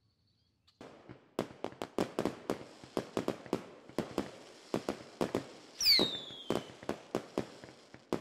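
Fireworks going off: a quick, irregular run of sharp pops and bangs starting about a second in, with a high falling whistle about six seconds in, the loudest part.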